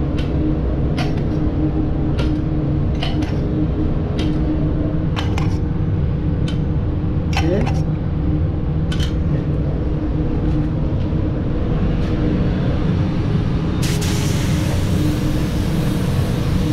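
Paint spray gun hissing as it starts spraying about 14 seconds in, after a run of light clinks from a mixing stick against metal paint cups, all over a steady low machine rumble with a hum.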